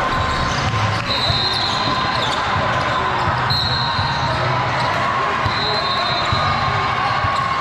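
Basketball game in play: a ball bouncing on the court and several short, high squeaks, over the chatter of spectators.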